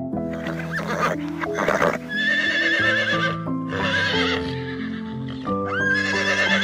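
A horse whinnying over background music: wavering high calls about two seconds in and again near the end, after a clatter in the first two seconds.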